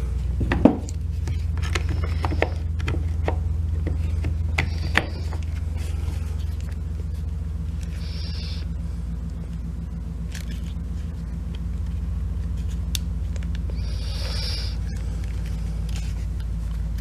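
Clicks and knocks of a Milwaukee impact driver's plastic housing and parts being handled while it is fitted back together, the loudest knock about a second in, with a few short rustles later. A steady low hum runs underneath.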